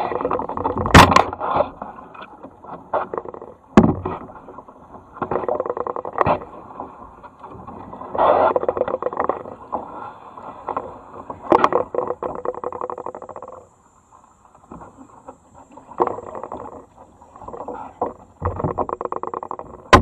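Kayak paddling: paddle blades dipping and splashing into the river in an irregular rhythm, with water dripping and a few sharp hits every couple of seconds.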